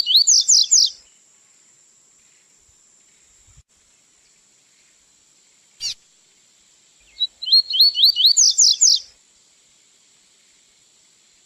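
Male double-collared seedeater (coleiro) singing the 'tui-tui' song. One phrase ends about a second in, a single sharp note comes near the middle, and a second phrase of about two seconds follows: a run of quick slurred notes that climbs into a faster, higher twitter.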